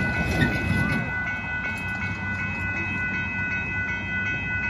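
Railroad crossing warning bells ringing, a steady high clanging repeated in a quick, even rhythm as the gates come down. A low rumble in the first second fades as a vehicle clears the crossing.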